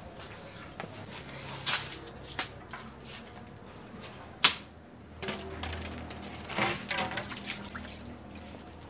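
A few sharp knocks and clicks of kitchen handling, the loudest about four and a half seconds in, over a low steady hum.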